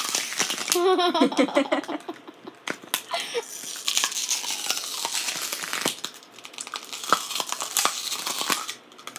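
Plastic drink bottles being bitten on their bottoms, crackling and crunching in rapid clicks that mimic biting into an apple. A brief giggle about a second in.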